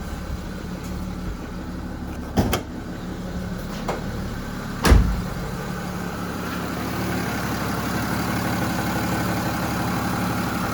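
BMW X3 3.0sd's straight-six diesel engine idling steadily. A sharp knock comes about two and a half seconds in and a louder, deep thump about five seconds in, and the running sound grows slightly louder afterwards.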